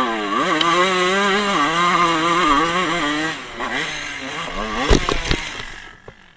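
2000 Honda CR125's two-stroke single-cylinder engine revving hard, its pitch wavering up and down and climbing again after a brief dip. About five seconds in there are two sharp knocks as the bike comes down and crashes, and the engine sound then fades away.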